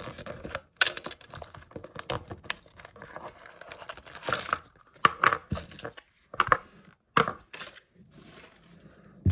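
Small plastic bags and packaging crinkling and tearing as they are handled, in irregular crackles and clicks.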